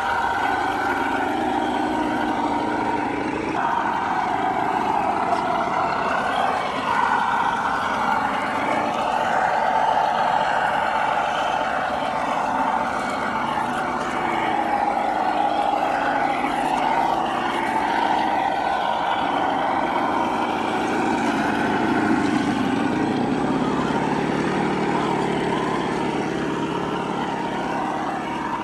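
Electric drive motor and gearbox of a radio-controlled scale Suzuki Jimny crawler whining steadily as it climbs and crawls, the pitch drifting up and down with the throttle. A lower hum grows stronger near the end.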